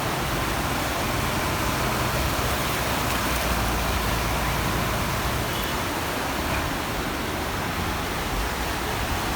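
Rushing water in a flood: a steady, even noise with no breaks or distinct events.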